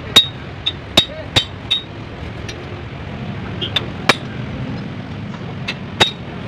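Sharp metallic clinks and taps of metal parts against a bare 4D56 diesel engine block as it is being reassembled, about nine in irregular clusters, each with a brief ring, over a steady low shop hum.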